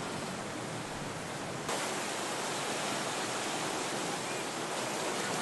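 Steady rush of flowing floodwater. About two seconds in it cuts abruptly to a brighter, somewhat louder rush of water.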